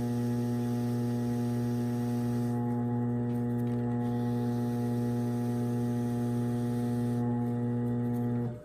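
Electric potter's wheel motor humming steadily as the wheel spins during trimming, with a faint hiss of the trimming tool; the hum cuts off abruptly near the end.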